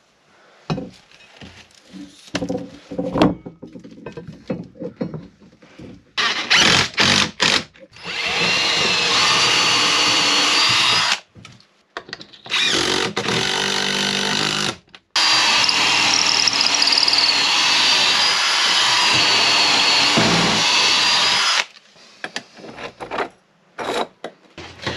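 Cordless drill working into a timber frame in three long runs of a few seconds each, after a few short bursts and knocks. Between the runs it stops briefly.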